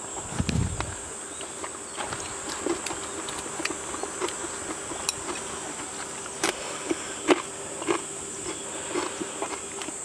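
Insects chirring steadily in the background, with scattered small clicks and taps of cutlery and dishes at a meal and a single low thump about half a second in.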